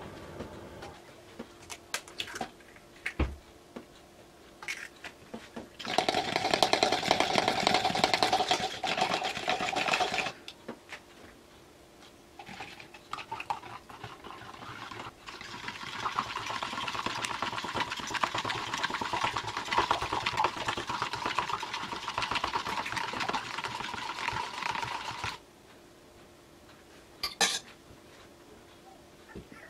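Small electric hand blender running in the plastic jug, blending the egg-and-milk pudding mixture: a short spell of about four seconds, then a longer one of about ten seconds with a steady higher whine that stops suddenly. A few light knocks from handling come before and after.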